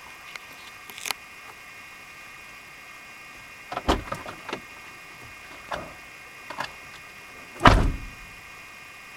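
A series of knocks and thumps, six in all, with the loudest and deepest one near the end, over a faint steady high hum.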